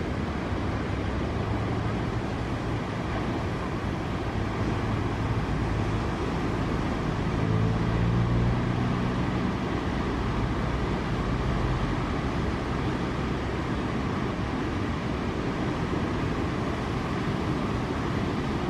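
Steady outdoor roar of surf and wind noise, with a low vehicle engine hum swelling about seven to nine seconds in, as a car passes.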